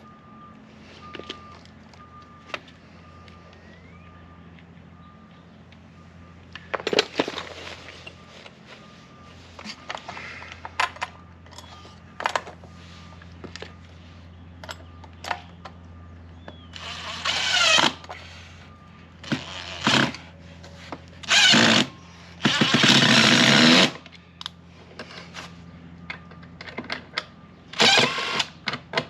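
Cordless drill-driver running in several short bursts, its pitch rising as it spins up while driving screws, with clicks and knocks of handling the door hardware between the bursts over a steady low hum.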